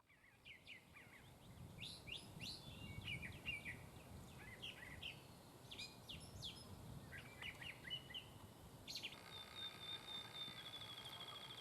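Songbirds chirping and singing over a low outdoor rumble. About nine seconds in, a click, then a steady high tone with a short trill near the end.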